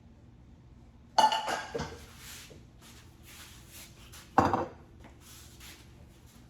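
Metal cookware clanking: a sharp ringing clank about a second in, then a short clatter, and a second clank a little past halfway.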